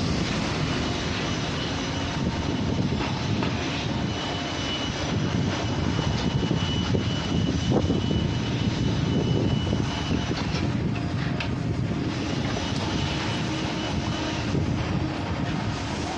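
Construction site noise: a continuous heavy machinery rumble that swells and eases a little.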